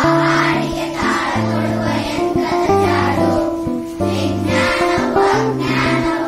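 A class of young schoolgirls singing a Kannada poem together as a group song. Held low accompanying notes change about once a second under the voices.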